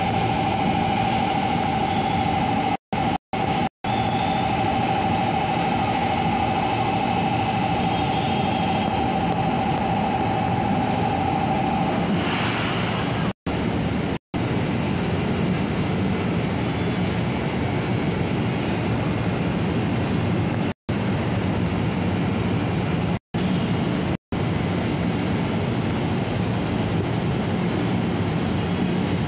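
Steady rumble of an electric commuter train at a busy station. A steady high tone runs for about the first twelve seconds and then stops. The sound cuts out for an instant several times.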